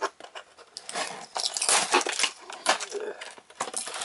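Cardboard packaging being handled: a hobby knife slitting packing tape, with irregular scraping, rustling and light clicks of cardboard being worked loose.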